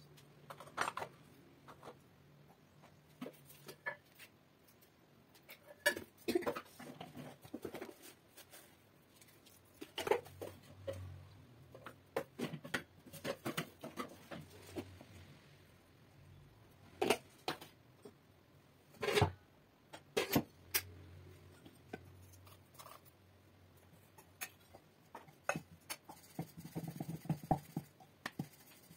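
Scattered clinks and knocks of steel bowls and spoons being handled, with dough being worked on a wooden board; the loudest knock comes about nineteen seconds in.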